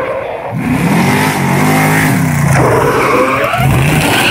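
Engine of a fire-drill racing rig revving hard as it accelerates down the track, climbing in pitch from about half a second in, dropping briefly past the middle, then climbing again.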